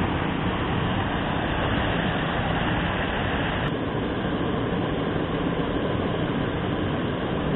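Steady rushing noise with no distinct knocks, tones or voices, dimming slightly in its upper part about halfway through.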